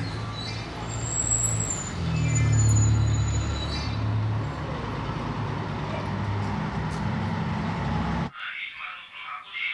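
Street traffic: a heavy road vehicle's engine rumbling steadily amid traffic noise, with brief high squeals about a second in and again around two and a half seconds. It cuts off abruptly about eight seconds in.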